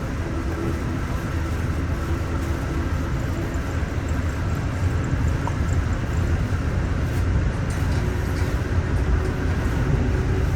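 Amtrak passenger train running along the rails, heard from inside the car as a steady low rumble with a constant hiss of wheel and track noise.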